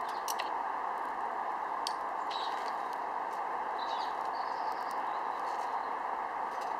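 Kindling burning in a small folding steel stick stove, crackling with scattered sharp pops over a steady hiss.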